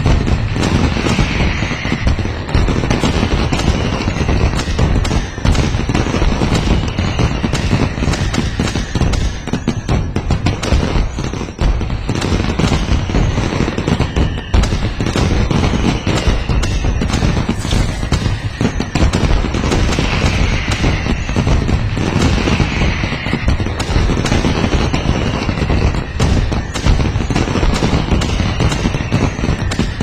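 Fireworks display: a dense, continuous barrage of bangs and crackling, with a faint whistle now and then.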